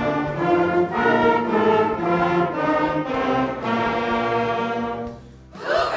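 A middle school band of wind and brass instruments plays a short run of sustained chords, the notes changing about every half second, and stops about five seconds in. Right at the end the band students start shouting together.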